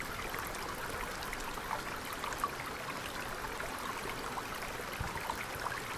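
River water running over rapids: a steady rush with many small splashes and gurgles over the rocks.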